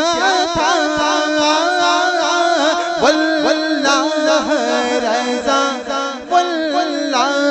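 A man singing an Urdu naat, the voice's pitch bending up and down in long drawn-out phrases.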